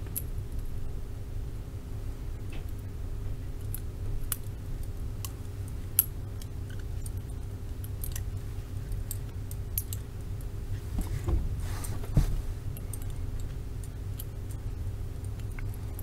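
Light metallic clicks and scrapes of an improvised pick working inside the keyhole of Peerless handcuffs, picking the main lock, over a steady low hum. There is a sharper click about 6 s in and a cluster of scraping clicks around 11 to 12 seconds.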